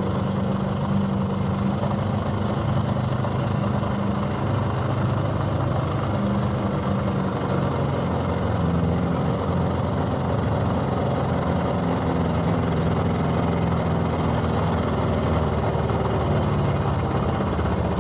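First-generation Dodge pickup's engine running steadily under load as the truck pulls a weight-transfer sled, holding a fairly constant pitch.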